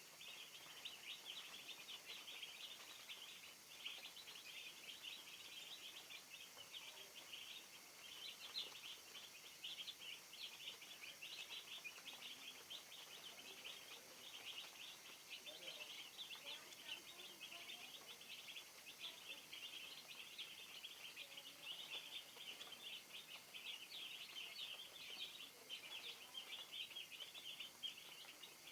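A flock of broiler chicks peeping continuously: many faint, overlapping high chirps.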